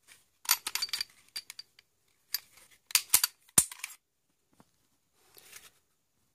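Metal clicks and rattles of a pistol being handled, in two clusters, with a louder sharp click about three and a half seconds in.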